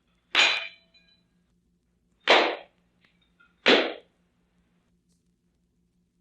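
Shooting gallery sound effect: three single shots, about two seconds and then a second and a half apart, the first followed by a brief metallic ring.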